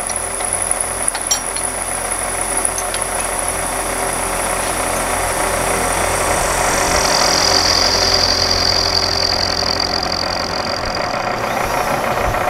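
Vertical milling machine's end mill cutting the cast iron of a Chevy 292 six-cylinder head: a steady grinding cut with a thin high whine that drops in pitch about halfway through. A few sharp ticks sound early on top of it.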